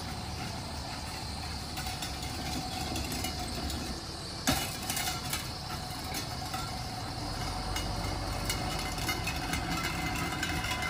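Pickup truck's engine running as it slowly tows a fifth-wheel camper trailer past, a steady drone. There is one sudden sharp noise about four and a half seconds in.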